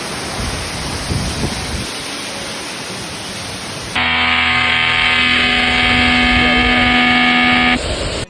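Waterfall roar, a loud, even rushing. About four seconds in it turns louder and harsher, with steady tones running through it until just before the end.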